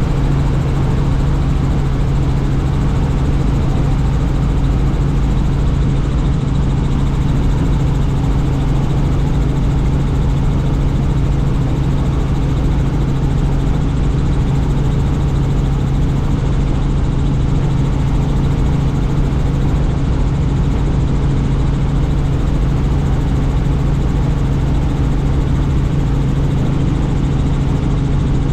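Helicopter in flight heard from on board: a steady, loud drone of engine and rotor with a strong low hum, unchanging throughout.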